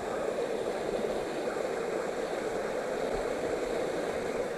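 Waterfall pouring and splashing, a steady rush of water.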